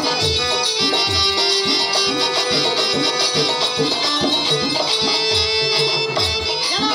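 Live traditional music for a stage dance: a sustained melody over a hand drum beating about three strokes a second, its low strokes sliding down in pitch.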